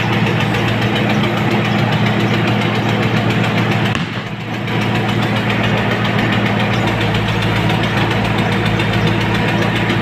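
Case backhoe loader's diesel engine running steadily as the backhoe digs, heard from inside the cab. The level dips briefly about four seconds in.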